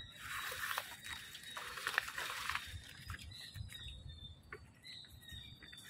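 Footsteps on a bamboo boardwalk, with leaves brushing and rustling for the first two or three seconds, then a few faint high chirps.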